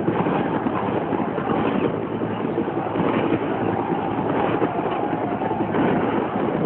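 Military helicopter flying low: steady rotor and engine noise.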